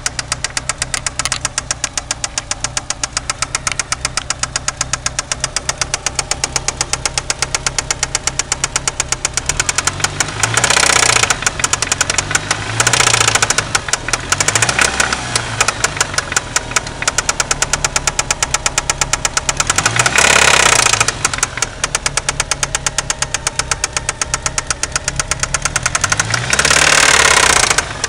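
Turbocharged 4G63 four-cylinder engine of a '93 Eagle Talon running with a steady, rapid knock. The revs are briefly raised four times. The knock comes from a spun connecting rod bearing, leaving play between the rod and the crankshaft.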